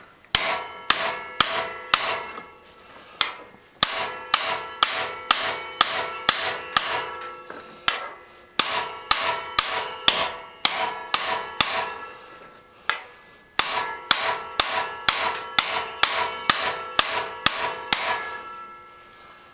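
A hammer striking a manual hand impact driver again and again, each blow a sharp metallic clank that rings on. The blows come in bursts of about two a second with short pauses between them. They are meant to break loose a tight, long-unmoved alternator mounting bolt, which the owner suspects is corroded or Loctited.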